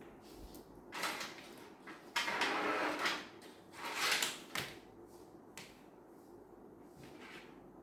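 Handling noises: a few scraping, sliding sounds, the longest lasting about a second, with quiet in between.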